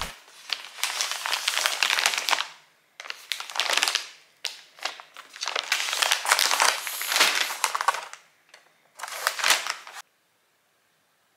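Plastic food pouch and cardboard-and-paper packaging crinkling and rustling as they are handled and unwrapped, in four bursts, cutting off abruptly near the end.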